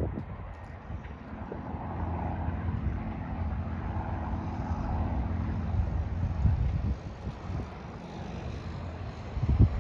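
Light propeller airplane's engine running as it passes, growing louder through the middle and dropping off about seven seconds in. Wind buffets the microphone with low thumps near the end.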